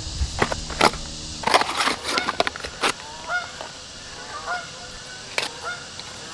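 Geese honking, short calls repeated every half second or so through the second half. Over them, in the first three seconds, louder knocks and rustles as firewood and a cardboard box of fire starters are handled on a stone fire pit.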